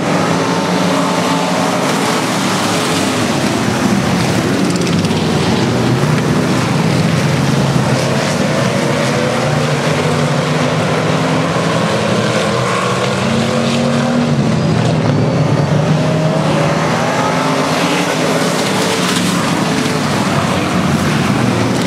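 A pack of IMCA Sport Mod dirt-track race cars running laps together, several engines overlapping and rising and falling in pitch as they come around. Loud and continuous.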